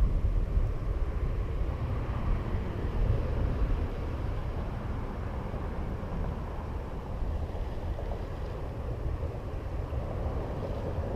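Wind buffeting the microphone: a steady low rumble, a little stronger in the first few seconds.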